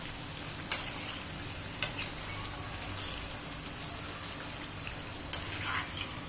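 Yam tikkis deep-frying in hot oil in a steel kadai, a steady sizzle. A metal slotted spoon knocks sharply against the pan three times, the last about five seconds in, followed by a brief scrape.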